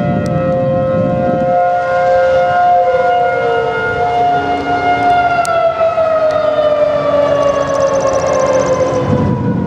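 Several civil defense sirens sounding a steady test tone together at different pitches. About three seconds in they begin winding down, their pitches falling slowly one after another.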